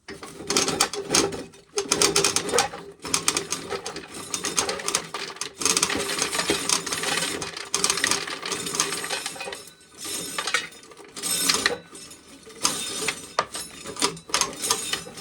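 Corn sheller working an ear of corn: a dense, continuous rattling clatter of the mechanism and loose kernels, with a few short pauses. The corn is cold and damp and slow to come off the cob.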